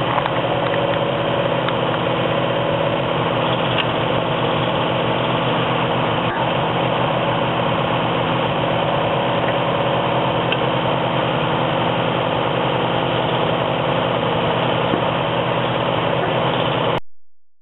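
Tractor engine running steadily, driving the hydraulic pump of a tractor-mounted log splitter as it works through a log, with a few faint knocks; it cuts off suddenly near the end.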